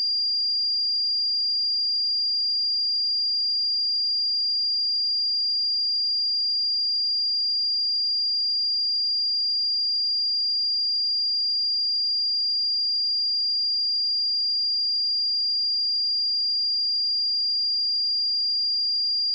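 A pure 4791 Hz sine-wave test tone, a single high-pitched steady whistle that holds constant in pitch and loudness.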